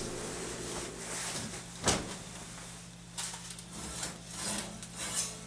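Faint rubbing and handling noises with a sharp knock about two seconds in and a few lighter knocks later, over a steady low hum.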